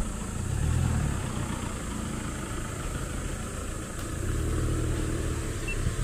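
An engine running at low revs, its low rumble swelling about a second in and again near the end.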